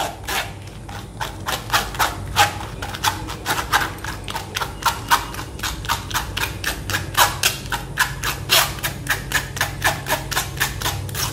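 Spoon scraping and tapping against a stainless-steel mesh strainer, pressing wet mustard-seed paste through into a steel bowl: a quick run of scrapes and clicks, several a second, over a low steady hum.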